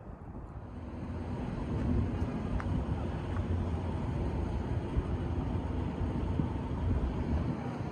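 A large vehicle running, a steady low rumble with a hum, building over the first couple of seconds and then holding.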